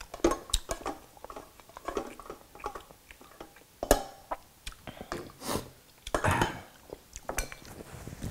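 Light clinks and knocks of a ceramic bowl against a pot as rice is scooped into the bowl, with one sharper knock about four seconds in.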